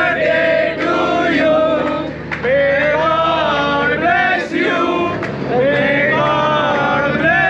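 A group of people singing together in chorus, as at a cake cutting.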